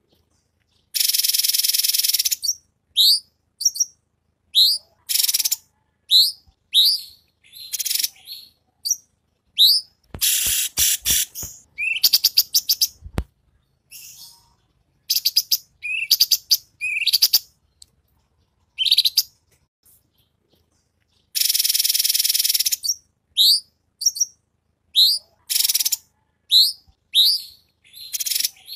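Recorded songs of cucak cungkok, cililin and kapas tembak songbirds mixed as a masteran (tutor track): many short upward-sliding chirps, two loud, dense, buzzy phrases a little over a second long, one about a second in and one past the twenty-second mark, and a quick run of sharp clicking notes about ten seconds in.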